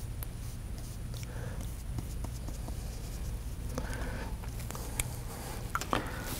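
Faint scratching of a watercolour brush stroking across paper over a steady low hum, with a few light clicks and taps near the end.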